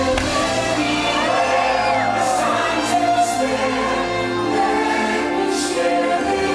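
Fireworks-show soundtrack music: a choir singing a slow, held melody over sustained orchestral chords.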